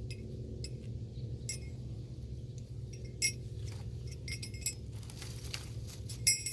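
Light metallic clinks and jingles of strap hardware being handled, a few times, loudest about three seconds in and again near the end, over a steady low hum.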